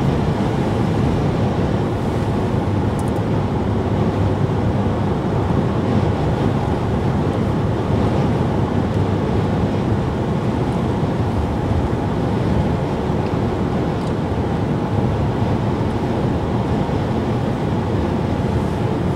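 Steady road and engine noise inside a moving car's cabin: an even, unbroken low rumble.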